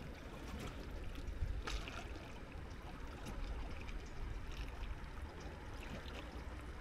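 Gentle sea water lapping and trickling at the shore, over a steady low rumble.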